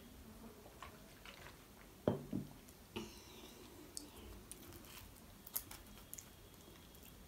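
Close-miked mouth and handling sounds: sips and swallows of water from a steel tumbler, with a louder low thud about two seconds in and another about a second later. Scattered small clicks follow as a fried momo is picked up from the board.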